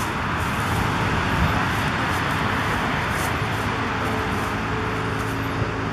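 Motor scooter engine running as the scooter climbs toward the listener, its steady engine tone coming up clearly over a constant hiss from about two-thirds of the way in.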